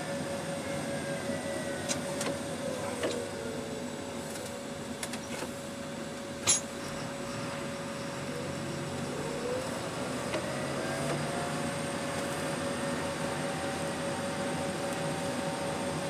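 Tractor running under way, heard from inside its cab: a steady engine and cab noise with a continuous whine, and one sharp click about six and a half seconds in.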